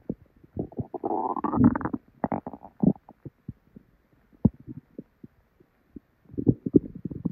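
Stomach and bowel gurgling: irregular wet gurgles and pops, with a rising gurgle about a second in, then scattered single pops, and another cluster near the end. It is the bubbling of active digestion after a meal, which she puts down to diarrhea.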